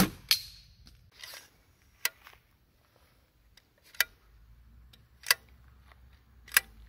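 A sharp crack as the slingshot rifle's rubber bands are released, firing a shot. It is followed by single crisp metallic clicks, about one every second and a half, as the retractable aluminium stock is slid through its lock positions.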